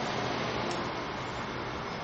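Steady, even rushing background noise with no distinct events; no thunder is heard.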